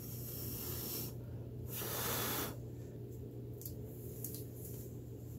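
Faint rustle of a plastic tarp as a painted canvas is handled and slid on it, with one brief hissing swish about two seconds in, over a steady low hum.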